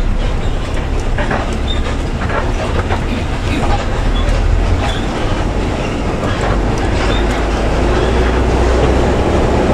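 Bus heard from inside the cabin on a rough downhill road: the engine runs with a steady low rumble while the body and fittings rattle and clatter over the uneven surface. A firmer hum comes in about eight seconds in.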